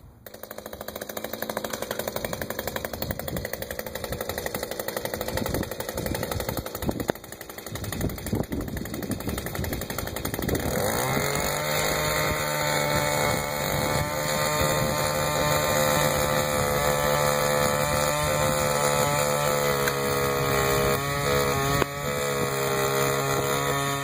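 Small engine of a handheld power tool running at a low, uneven idle, then revving up about eleven seconds in and holding a steady high speed. This is the drilling stage for the cable's through-bolts.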